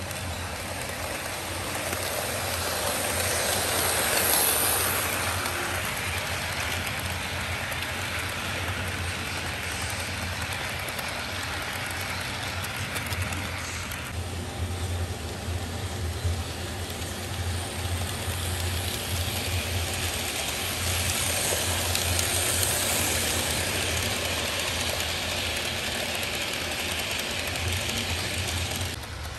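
HO-scale model trains running on plastic-roadbed sectional track: a steady rolling hiss and rattle of wheels over the rails with a low motor hum, getting louder twice as trains pass close by.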